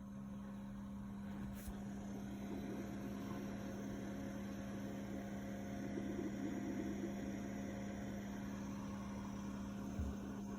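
Steady hum with one strong low tone and fainter overtones, unchanging throughout.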